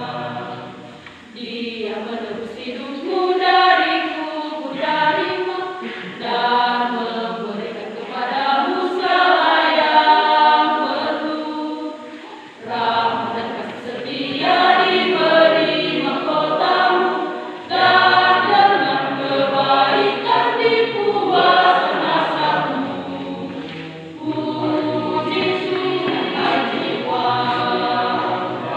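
Church choir of young women singing a hymn together, the sung phrases swelling and easing off with short breaks between them.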